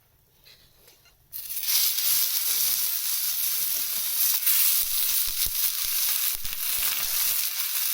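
Food sizzling hard on a hot pan, starting suddenly about a second in and then holding steady.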